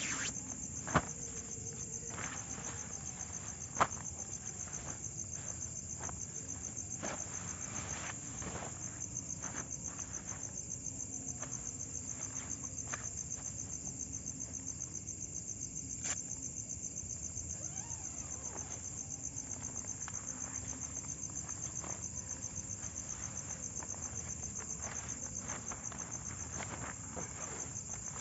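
Night insects trilling steadily in a high, fast-pulsing chorus, with scattered faint ticks and taps and two sharp knocks, about one and four seconds in.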